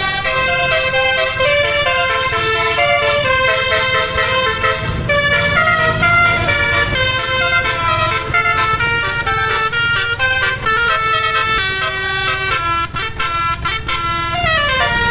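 Basuri musical air horn (telolet horn) on a tour bus playing a tune, one note after another with no pause; near the end the pitch slides down.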